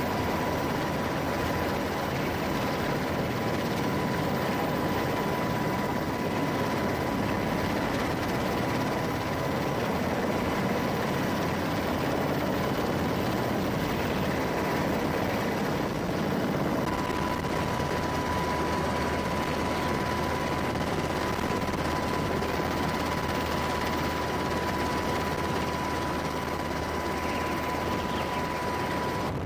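Several HH-60G Pave Hawk helicopters running: twin turboshaft engines and rotors make a steady rushing noise with a steady high whine over it.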